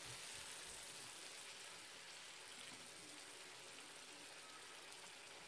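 Chicken and pumpkin curry simmering in a frying pan, a faint steady hiss that fades slightly.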